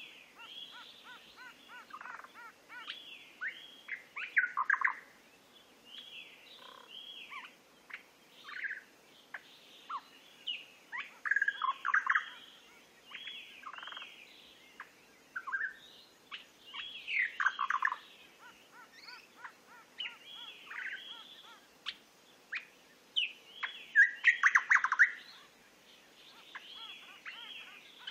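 Recorded birdsong: several birds singing at once, with many short chirps and quickly falling notes overlapping, and louder bursts of song now and then.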